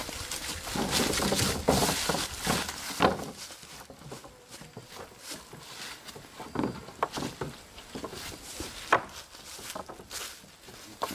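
Footsteps and rustling in dry leaves, with scattered knocks and clanks as a wooden trap door is shoved and shaken between steel T-posts; one sharp knock stands out near the end.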